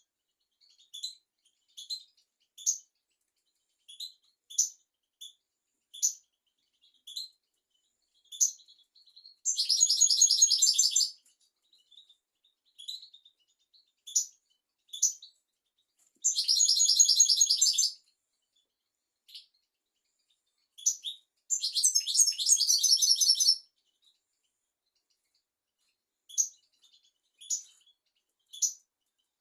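European goldfinch singing: short, high chirps at a rate of about one or two a second, broken by three longer phrases of fast twittering notes, each lasting about one and a half to two seconds.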